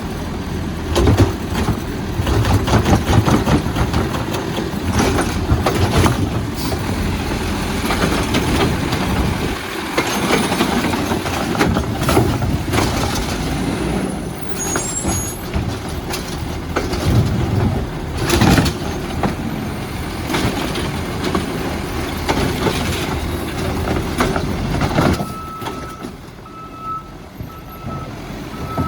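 Heil Rapid Rail automated side-loader garbage truck working hard: the engine running under load while the arm lifts and dumps carts, with repeated bangs and clatter of bins and hydraulics. Near the end the truck quietens and a beeping alarm starts, repeating about once a second.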